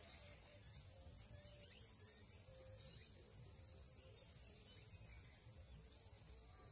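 Faint field ambience of insects: a steady high-pitched drone with short chirps repeating a couple of times a second, over a low rumble.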